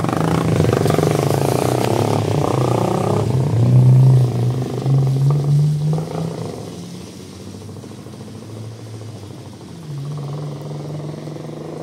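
Yamaha Fazer 250 single-cylinder motorcycle riding on the street, its stock muffler made loud by spacing out the end cap with extra nuts. The engine revs up to its loudest about four seconds in, fades as the bike moves away, and comes back louder again about ten seconds in.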